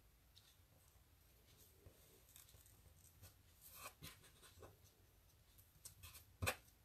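Faint rustling and light clicks of hands working seam binding ribbon around a small cardstock panel, with a sharper tap near the end.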